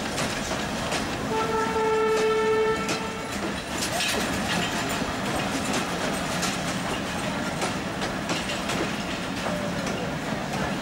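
Passenger train running on the rails, its wheels rumbling and clacking over rail joints. A train horn sounds once, a single steady blast of about a second and a half, near the start.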